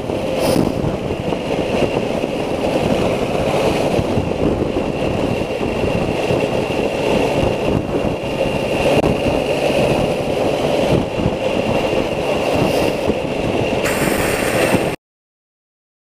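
Triumph Thunderbird 900 three-cylinder motorcycle engine running steadily while the bike is ridden along a road, with a faint steady high whine above it. The sound cuts off suddenly about a second before the end.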